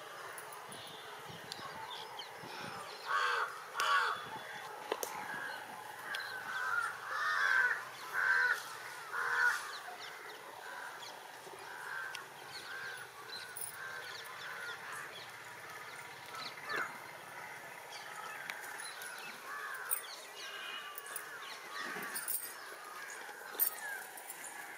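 Birds calling: a run of short repeated calls from about three to ten seconds in, then fainter scattered calls over a steady low background.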